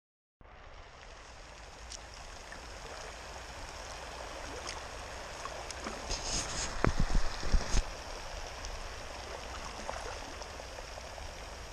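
Water trickling and lapping around a kayak on a lake, with a cluster of louder knocks and thumps about seven seconds in.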